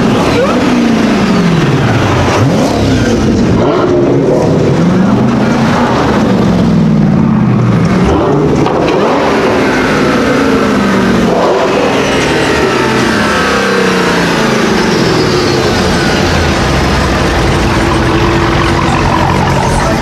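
A supercar engine revving hard several times, its pitch climbing and falling about every two seconds, then settling into a steadier, higher note in the second half.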